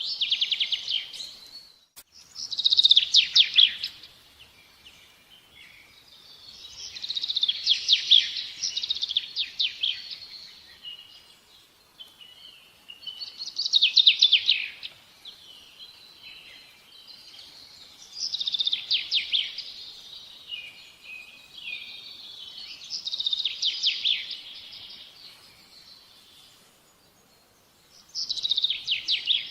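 A bird singing short, rapid trilled phrases, one every four to five seconds, with a single sharp click about two seconds in.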